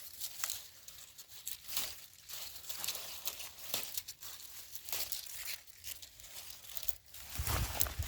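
Dry cowpea plants crackling and rustling as they are handled, in irregular small snaps and crinkles, with a low thump near the end.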